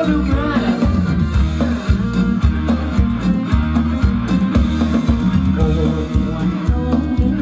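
Live band playing Thai ramwong dance music, with a steady, loud drum-and-bass beat and a melody on top.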